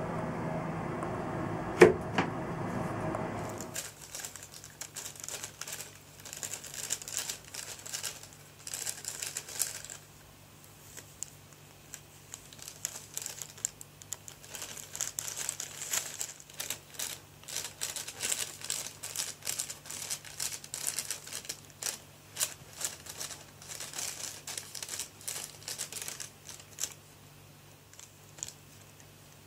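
Thin plastic shopping bag crinkling and rustling in irregular bursts as a cat shifts and turns around inside it. Before that, about two seconds in, a single sharp knock is the loudest sound.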